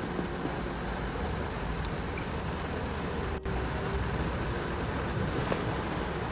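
Heavy rain falling on a car's roof and windows, heard from inside the cabin as a steady hiss with a brief dropout about halfway through.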